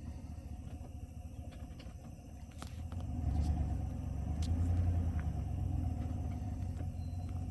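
Low, steady engine rumble that swells about three seconds in and stays louder, with a few faint clicks.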